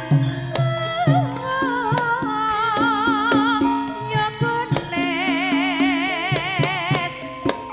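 A Javanese gamelan (karawitan) ensemble playing while a sinden, a female singer, holds long high notes with a strong, even vibrato. Sustained low metallophone tones repeat underneath, and sharp kendang drum strokes come throughout.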